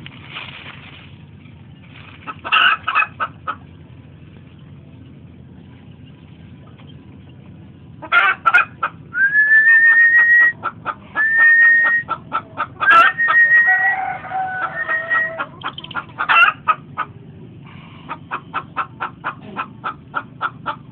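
Domestic chickens clucking in repeated quick runs, ending in a steady even run of about five clucks a second. Midway there are several drawn-out, slightly rising whistled calls.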